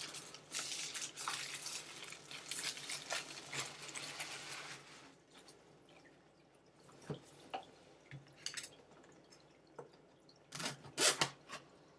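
Cardboard box and packaging of an external hard drive being opened by hand: rustling and crinkling for the first few seconds, then scattered light clicks and knocks, with a louder run of knocks near the end.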